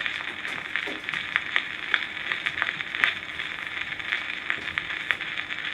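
Surface hiss from an Edison Blue Amberol cylinder record playing on a phonograph, with irregular crackles and pops several times a second and no music.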